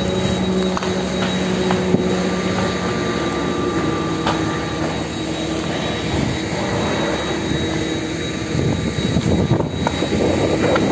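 Large warehouse fire burning: a loud, steady roar with a few scattered pops, over a steady mechanical hum that fades out about a third of the way in. The roar grows rougher near the end.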